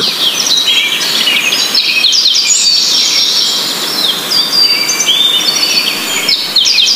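A chorus of small birds: many overlapping short chirps, trills and whistled calls, over a steady background hiss.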